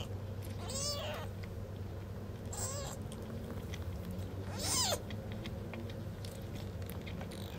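Newborn kitten mewing during bottle-feeding: three short, high cries, each rising and falling in pitch.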